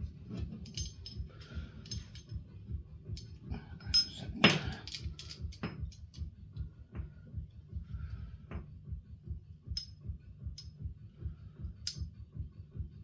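Metal clicks and clinks of steel handcuffs and a handcuff key being fumbled against them while the key searches for the keyhole, with a louder knock and rattle about four and a half seconds in. A steady low pulsing hum runs underneath.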